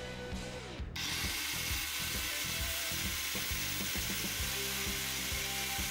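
A Kyuho LG100 4-inch angle grinder switches on about a second in and runs free with no disc load, at roughly 9,400 RPM, giving a steady, even rushing whine.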